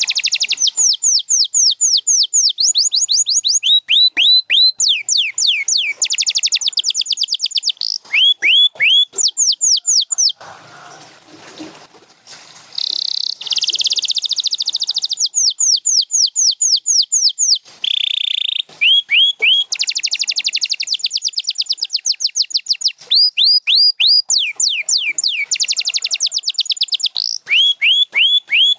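Canary singing: fast trills of repeated down-sweeping whistled notes, each phrase rolling straight into the next, with a short break about ten seconds in.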